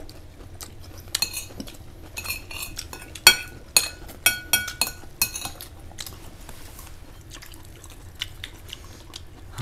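Utensils clinking against dishes: a run of sharp clinks over the first half, one ringing briefly, then only a few small ticks.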